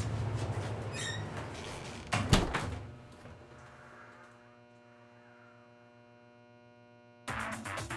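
A door creaks and then shuts with a sharp bang a couple of seconds in. A low steady electrical hum with a buzz follows, and music cuts in abruptly near the end.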